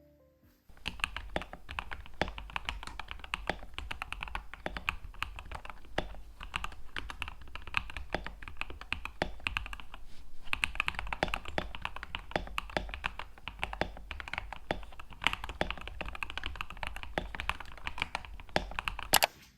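Typing on a mechanical keyboard fitted with its old keycaps: a dense, continuous run of key clacks that starts about a second in and stops just before the end.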